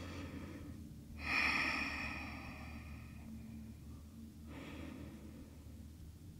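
A woman breathing deeply while holding a yoga forward fold. A loud exhale comes about a second in and fades over about two seconds, and a softer breath follows near the end, over a faint steady low hum.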